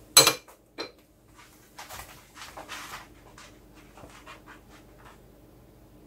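A metal spoon clinks against the rim of a stainless steel soup pot twice, with a short ringing tail. The first clink is the loudest. Softer breathy sounds and small clicks follow for a few seconds.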